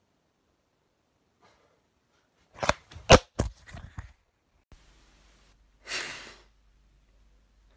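A quick run of sharp thumps and rubbing from a phone knocked against bare skin right at its microphone. A little later comes a single short breathy exhale, like a sigh, over a faint low hum.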